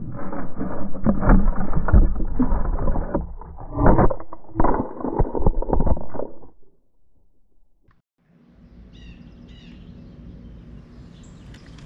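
Birdseed and corn rustling and crunching right at the microphone as a large furry animal rummages and feeds in the feeder tray. It stops about seven seconds in, and a few faint bird chirps follow near the end.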